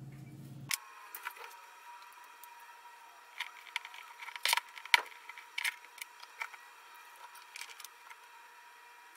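Irregular sharp clicks and light knocks as a circuit board is handled and clipped into the metal arms and alligator clips of a helping-hands clamp, the loudest about five seconds in, over a faint steady high tone.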